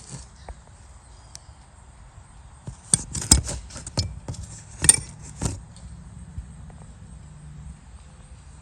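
Hands handling a metal door handle and its parts: a handful of sharp clicks and taps, bunched together between about three and five and a half seconds in, over a faint steady hum.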